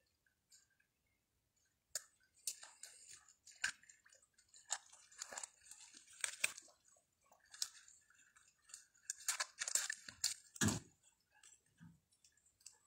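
Footsteps crunching and crackling through dry leaves, twigs and brittle fallen branches, in an irregular run starting about two seconds in, with a dull thump near the end.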